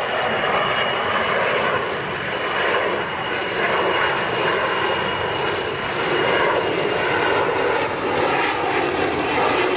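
Kawasaki C-1 twin-turbofan military transport flying past, a steady loud engine rush with a high whine that slowly sinks in pitch.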